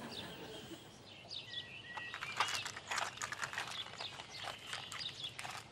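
Birds chirping and whistling over quiet outdoor ambience. From about two seconds in there is a run of soft clicks and rustles.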